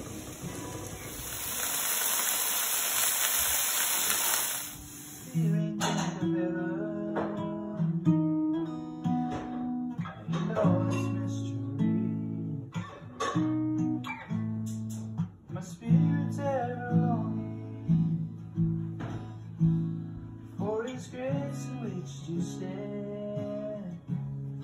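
Food sizzling in a frying pan for about five seconds, then an acoustic guitar being played.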